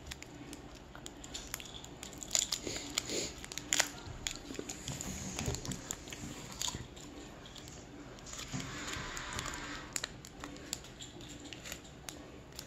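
A small candy wrapper crinkling and crackling in fingers as it is picked open: scattered soft ticks, with a few louder crinkles around the third and fourth second and a longer rustle about eight seconds in.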